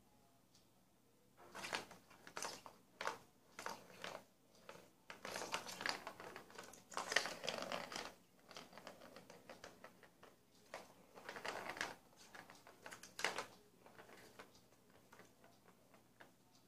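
Light-up plastic ball rattling and rolling through the plastic track of a Catit Senses Super Roller Circuit as a cat bats at it. Irregular bursts of clattering start about a second and a half in and thin to faint ticks near the end.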